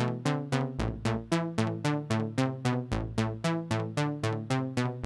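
Saw-wave synth plucks playing a steady pattern of short, quickly decaying notes, about four a second, over a low note that changes every couple of seconds. The original pluck and its Synplant 2 recreation play together while the recreation's tuning is raised by ear to match.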